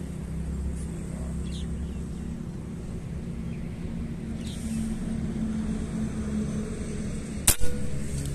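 A single sharp shot from an Artemis P10 PCP air gun about seven and a half seconds in, over a steady low hum.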